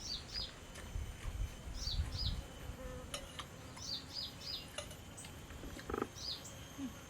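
Short high-pitched chirps from a small creature, coming in twos and threes every second or so, over a low uneven rumble with a few light clicks.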